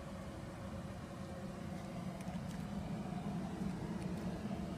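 2008 Audi A6 engine idling with a steady low hum.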